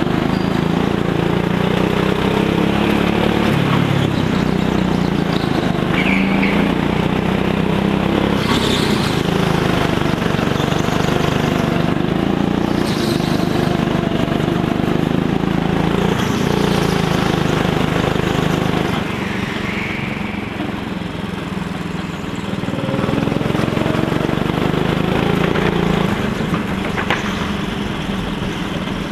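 Go-kart engine running at speed, its pitch rising and falling as the kart accelerates and slows through the corners; it eases off about two-thirds of the way in and again near the end.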